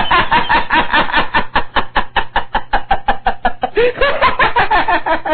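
A man laughing in a long unbroken run of quick ha-ha pulses, several a second.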